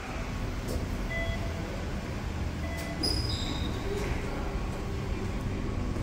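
Steady low rumble of background noise at a shopping-centre entrance, with a few short high-pitched tones about halfway.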